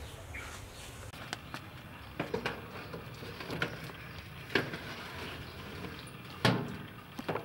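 Metal baking tray knocking and scraping as it is slid onto the rack of a countertop electric oven: a scattering of light clanks and clicks, the sharpest about six and a half seconds in.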